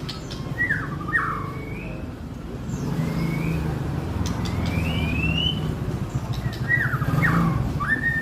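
White-rumped shama giving a few short call notes and brief rising chirps instead of full song: the bird wants to sing but is still weak after its molt. A steady low vehicle rumble runs underneath.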